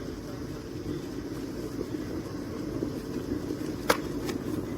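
Hamilton Beach 1-liter glass electric kettle heating water: a steady rumbling hiss of water coming up toward the boil, slowly growing louder, with a sharp click about four seconds in.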